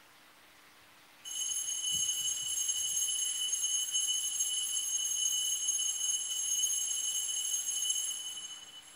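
A bell rings continuously for about seven seconds with a bright, high, steady tone, starting about a second in and fading out near the end. This is the church bell rung to signal the start of Mass.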